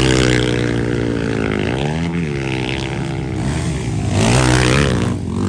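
Motocross bike engines revving hard on the dirt track, their pitch climbing and dropping several times as the riders accelerate and back off.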